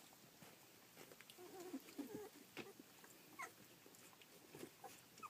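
Faint calls of two-week-old rough collie puppies: a few short, wavering little calls about two seconds in and a higher short squeak a second or so later, among small scattered clicks.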